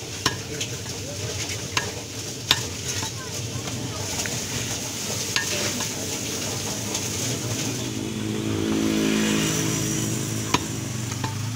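Butcher's cleaver chopping beef on a wooden log chopping block: a few sharp, irregularly spaced knocks over steady street noise. Between about eight and ten seconds in, a motor vehicle's engine hum rises and fades as it passes.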